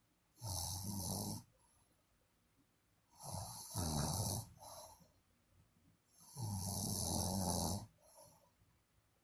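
A sleeper snoring: three snores about three seconds apart, each lasting about a second.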